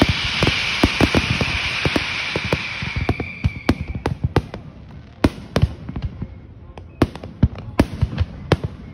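Fireworks barrage: rapid bangs from bursting shells over a steady hiss with a high whistle. The hiss fades away about four seconds in, leaving separate irregular bangs several times a second.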